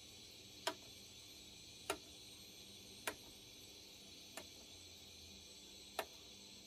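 Model railway turntable bridge rotating under an electronic turntable controller, giving five sharp clicks spaced a bit more than a second apart; the fourth is fainter.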